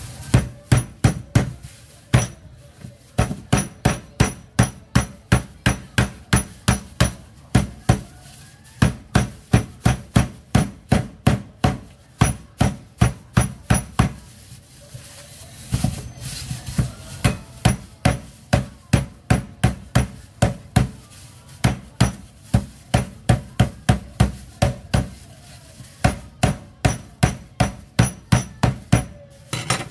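The flat of a steel cleaver slaps bagged cucumbers against a wooden chopping block, smashing them so they crack open. It is a fast run of sharp smacks, about two to three a second, in bursts with short pauses between.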